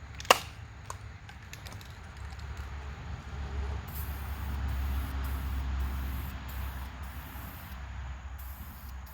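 Aerosol spray can of gloss clear coat hissing in a series of short spurts with brief gaps between them, from about four seconds in, over a steady low rumble. A single sharp knock comes just after the start.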